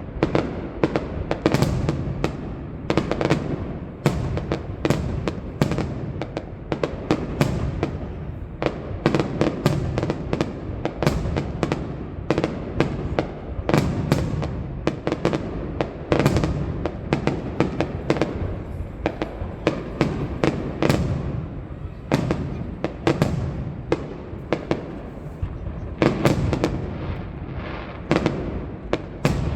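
Aerial fireworks going off in quick succession: a dense run of sharp bangs, several a second, over a continuous low rumble.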